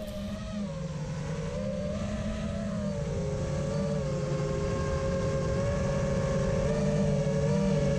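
FPV quadcopter's brushless motors and propellers whining steadily at low, even throttle, several close pitches together. The pitch steps down slightly about three seconds in, and the sound slowly grows louder.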